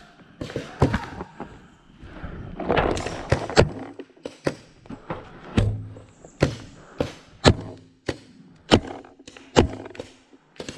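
Paintball markers firing: a string of single sharp pops, irregular, about one or two a second, with a short burst of rustling noise about three seconds in.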